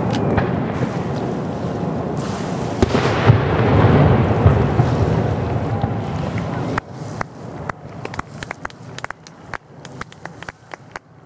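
Crowd applauding and cheering at the end of a fireworks display. About two-thirds of the way through, the sound drops suddenly to scattered single claps that thin out.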